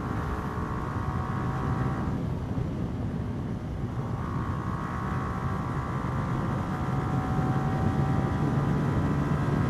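Yamaha R15 V3's single-cylinder engine running hard at speed in fifth gear, under a steady rush of wind and road noise. A higher whine in the engine note fades out about two seconds in and comes back about four seconds in, and the sound grows slightly louder toward the end.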